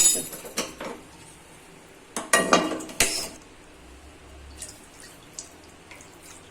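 Metal pan and kitchen utensils clattering: a couple of sharp knocks at the start, a longer burst of clattering a little past two seconds in, then a few light taps.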